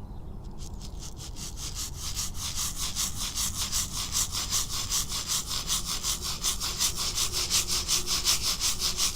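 Shamanic rattles shaken in a steady fast rhythm, about five shakes a second, starting softly and growing louder over the first couple of seconds.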